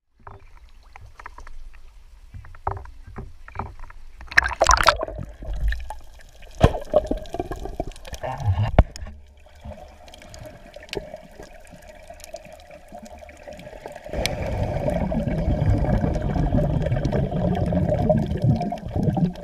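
Water sloshing and splashing around a camera at the water surface, with scattered knocks on the camera, then from about fourteen seconds in a steady, muffled underwater rush of water and bubbles.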